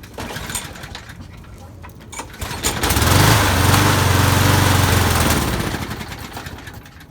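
Briggs & Stratton lawn mower engine starting about three seconds in, running at a steady pitch for a couple of seconds, then dying away as it stalls. It will not stay running without priming, a sign of fuel starvation, traced to clogged channel holes in the float bowl bolt.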